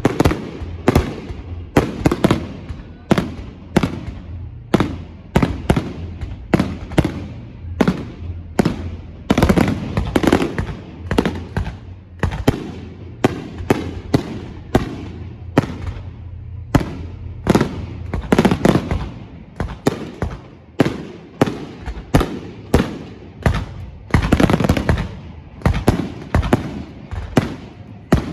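Fireworks display: shells bursting in rapid succession, several loud bangs a second with no let-up.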